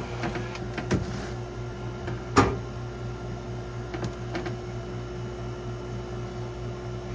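A steady low mechanical hum with a few sharp knocks and clicks over it, the loudest knock about two and a half seconds in.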